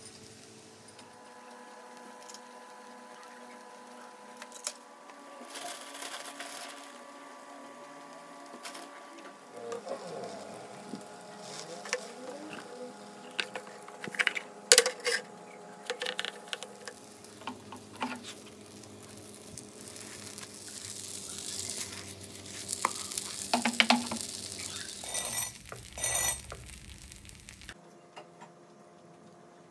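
Egg and a tortilla sizzling in a nonstick frying pan. About halfway through come knocks and clinks of the pan and a plate as it is flipped, and the sizzle swells again later before dying away near the end.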